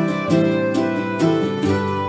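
Background music led by plucked string instruments, with notes changing quickly.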